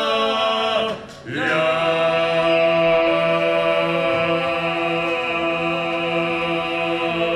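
A group of men singing in harmony, in a chant-like style: a short phrase, a brief breath about a second in, then one long held chord over a steady low bass note.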